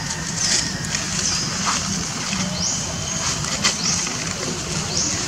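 Outdoor ambience: a high buzzing call that repeats about once a second over a low steady hum, with a few soft clicks.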